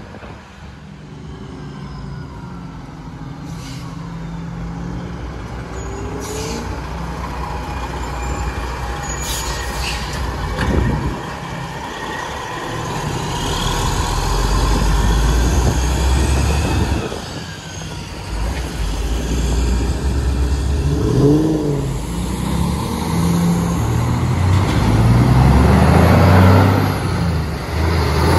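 Diesel semi trucks pulling scrap trailers pass close by one after another, their engines rumbling and revving as they pull away through the gears. The sound builds to a first peak about halfway through, eases off, then grows louder again toward the end as another truck accelerates past.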